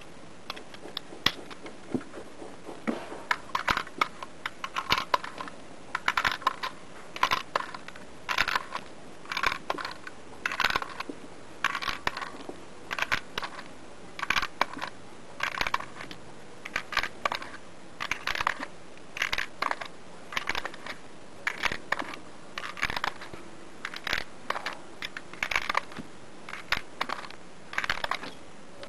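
LULA magazine loader pressing 7.62 mm cartridges one at a time into an AK-47 magazine. Each round gives a quick cluster of metallic and plastic clicks as it snaps in, repeating about once a second.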